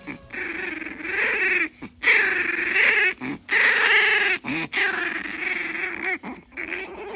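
A dog whining in a run of long, wavering calls, about five in a row with short breaks between them.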